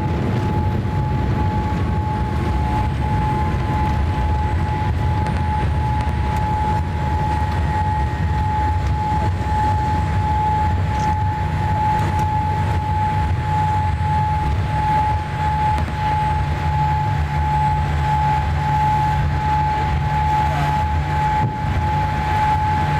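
Inside the cabin of a Boeing 787-8, the Rolls-Royce Trent 1000 engines run loudly and steadily: a deep rumble under one steady high whine.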